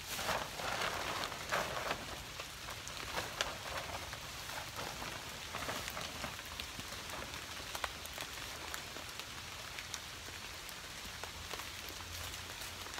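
Plastic tarp crinkling and rustling in bursts as it is pulled and spread out, the loudest crackling in the first two seconds, over a steady soft hiss.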